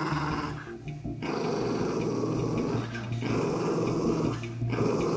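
Poodle growling a warning at its owner in long, rough snarls with brief pauses between them, the dog poised to lunge and bite.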